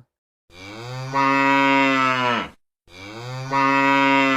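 Domestic cow mooing twice: two long, low, steady-pitched moos in a row, each starting softer and swelling louder partway through.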